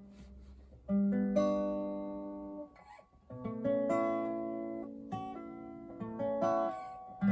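Acoustic guitar played slowly: chords struck about a second in and again a couple of seconds later, each left to ring out and fade, with lighter strums near the end.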